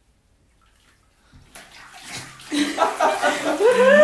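Bathwater splashing and sloshing in a tub as a girl is dunked under and lifted back out, starting after a second and a half of near silence. Near the end a voice rises into a long, high cheer.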